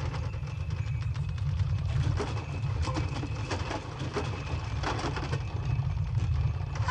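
A loud, steady deep rumble with scattered clicks and rattles over it.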